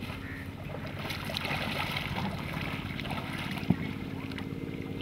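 River water lapping and dripping around a small foam raft as a wet cast net is handled, over a steady low hum. A single sharp knock comes about three and a half seconds in.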